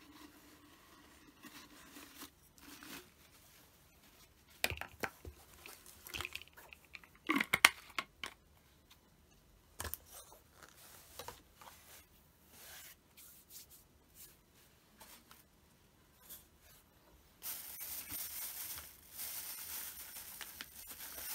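A hard plastic bottle and small items are handled and set down on a cloth-covered table: a cluster of clicks and knocks, loudest in the middle. Near the end comes a few seconds of steady, hissing rustle.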